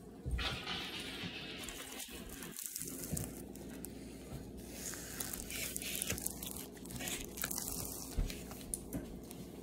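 Rustling and crinkling handling noise with a few light knocks scattered through it.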